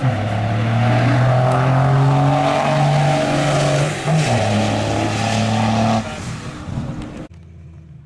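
Dodge Ram 3500's Cummins inline-six turbodiesel at full throttle down the drag strip, its note stepping down in pitch at a gear shift about four seconds in. It fades as the truck pulls away, then cuts off suddenly near the end.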